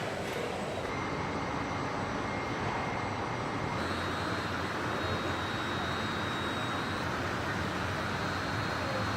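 Steady car-factory machinery noise: a dense hiss and hum with faint, thin high whines, changing abruptly about a second in and again about four seconds in.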